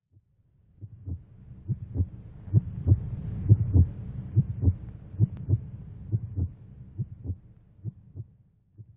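Heartbeat sound effect: paired low thumps, lub-dub, about once a second over a low hum, swelling in and fading out near the end.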